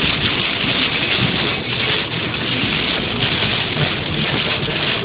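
Heavy rain mixed with sleet coming down hard: a dense, steady hiss.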